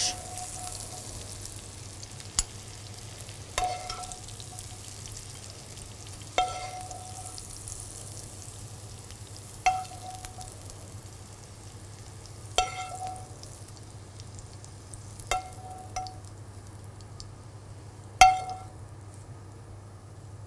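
A metal spoon clinks against a frying pan every couple of seconds as sautéed courgette is spooned out, and each clink rings briefly. Underneath is a steady sizzle of courgette frying in a hot pan.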